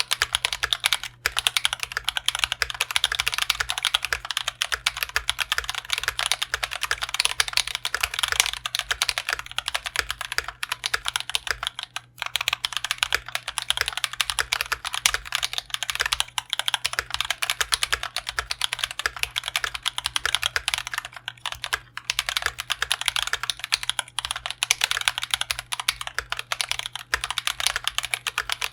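Continuous fast typing on a GMMK Pro mechanical keyboard: lubed and filmed Drop Holy Panda tactile switches in an aluminium plate, with GMK Laser ABS keycaps. The run breaks off briefly about a second in, about twelve seconds in and again around twenty-two seconds.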